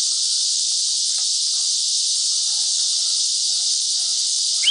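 Steady, even chorus of insects: a continuous high-pitched hiss that does not change.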